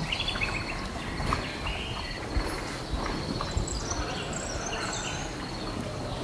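Countryside ambience: birds chirping and calling here and there over a steady high insect trill, with a few soft low knocks near the middle.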